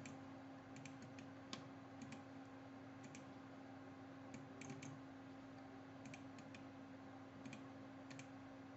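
Faint clicking of a computer mouse, a dozen or so clicks, some in quick pairs like double-clicks, over a low steady hum.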